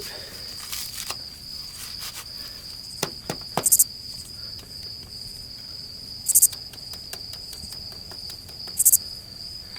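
Insects calling: a steady high-pitched trill, with a short, louder, very high buzzy chirp about every two and a half seconds. A few small clicks come around three seconds in.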